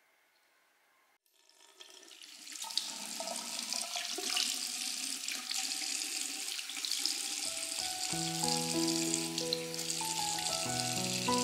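Water running from a tap into a bathroom sink and splashing over a kitten being washed by hand, a steady rush that starts about a second in after near silence. Background music with sustained notes joins about two-thirds of the way through.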